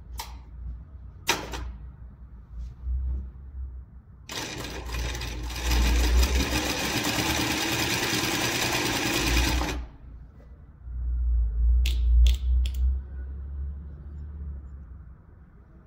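Juita JT20U-63Z industrial zigzag sewing machine running at speed for about five seconds with a rapid, even stitching rhythm, then stopping. A few sharp clicks follow a couple of seconds later.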